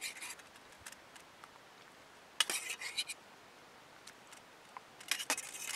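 A metal spoon clinking and scraping against a stainless steel pot and a glass bowl as blanched rock samphire is lifted into cold water. The clinks come in two short clusters, about two and a half seconds in and again near the end.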